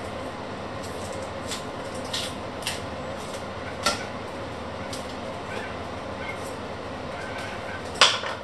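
Dry onion skins crackling and clicking as small onions are peeled by hand, then one sharp knock about 8 seconds in as a knife cuts down onto a wooden cutting board. A steady hum runs underneath.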